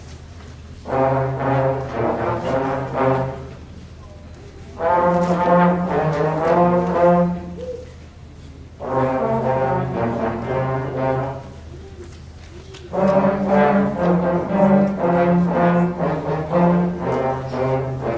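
School band playing a blues piece, brass to the fore, in phrases of held notes a few seconds long with short pauses between them.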